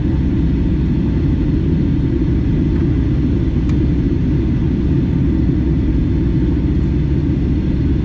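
Steady low rumble of a Boeing 757-300 in flight, engine and airflow noise heard inside the cabin at a window seat over the wing.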